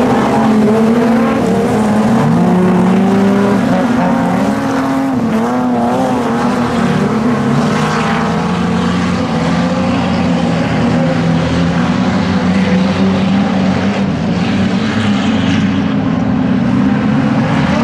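Several dirt-track speedway sedans racing together, their engines revving up and down as they lap, so that a few engine notes rise and fall and overlap.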